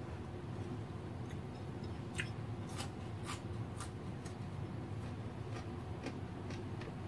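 A person chewing a mouthful of beef krengseng and rice eaten by hand, with a few sharp wet mouth clicks about two to four seconds in and fainter ones later, over a steady low hum.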